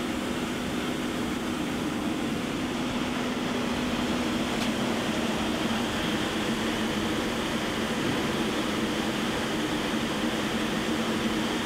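Steady hum of a 2007 Doosan Puma 240MC CNC turning center running while its turret traverses on the X and Z axes, the axis moves themselves quiet, with a faint click about halfway through.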